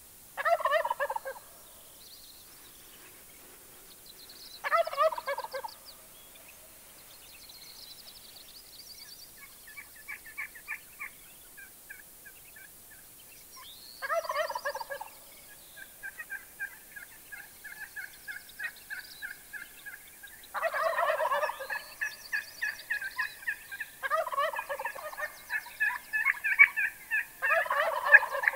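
Gould's wild turkey gobbling, about six loud rattling gobbles of roughly a second each, coming closer together toward the end.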